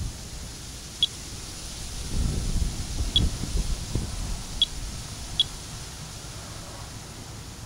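Monitor 4 Geiger counter chirping at irregular intervals, four short high beeps in all, each one a detected count at the low background rate of about 25 to 30 counts per minute. A low rumble comes in about two seconds in and lasts a couple of seconds.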